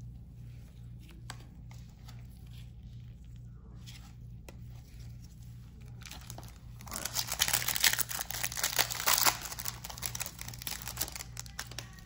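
Foil trading-card pack wrapper being torn open and crinkled, loudest about seven to nine seconds in. Before that, a few faint taps of cards being handled.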